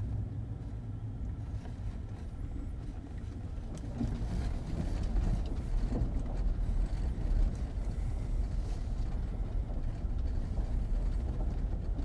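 A vehicle travelling on the road: a steady low rumble of engine and tyre noise with no distinct events.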